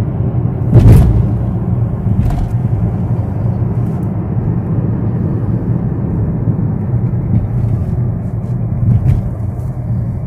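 Steady low drone of a car cruising at highway speed, heard from inside the cabin, with a sharp knock about a second in.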